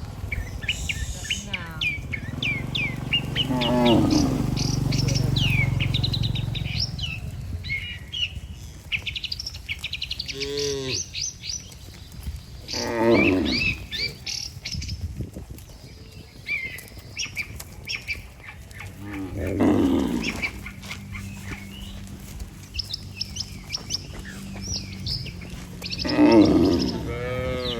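Cows mooing again and again, with small birds twittering throughout.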